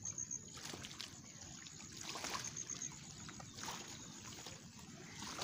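Shallow water splashing and sloshing at a lake's edge as a hooked fish is lifted out by hand, with scattered short splashes and rustles.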